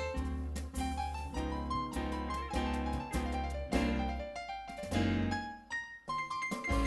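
Background music: a light keyboard tune with piano-like notes over a steady bass beat, which pauses briefly near the end and comes back with a repeated high note figure.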